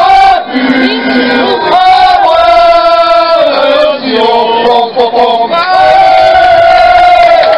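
A group of French football fans singing loudly together in unison, holding long notes with short breaks between phrases.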